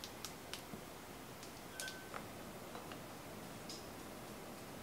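Quiet, with a few faint clicks and ticks as cooking oil is poured from a plastic bottle into an empty stainless steel pot.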